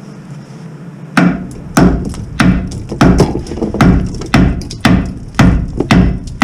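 Hammer blows knocking thick layers of rust off a rusted steel truck underbody to expose the bolts. About ten sharp strikes at a steady pace of nearly two a second, starting about a second in.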